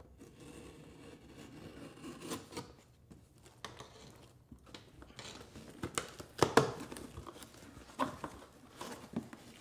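A blade scraping along the packing tape on a small cardboard box, faint at first; from about five seconds in, louder tearing and rustling of cardboard as the box flaps are pulled open, the loudest scrape a little past the middle.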